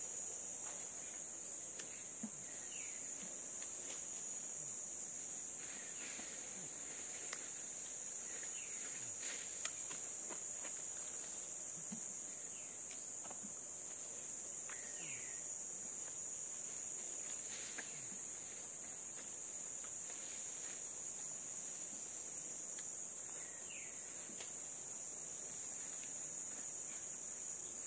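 Steady, high-pitched drone of insects, with faint scattered clicks and a few short chirps.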